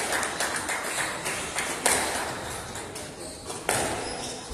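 Squash rally: the ball being struck by rackets and rebounding off the court walls, with a sharp crack about every two seconds echoing around the court and smaller taps between.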